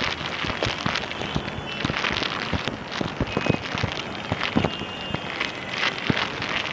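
Plastic biscuit wrapper crinkling as it is torn open and handled, a dense run of quick, irregular crackles.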